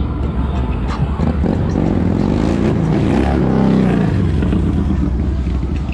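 A motor vehicle passing close by, its sound swelling from about a second and a half in, peaking near four seconds and fading, over a steady low rumble of wind on the microphone of a moving bicycle.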